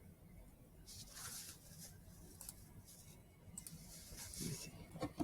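Faint scattered rustling with a few soft clicks and a sharper click near the end, the kind of handling noise made by someone entering a password on a device.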